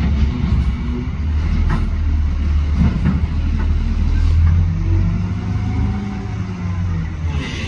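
A motor vehicle's engine running with a deep, steady rumble.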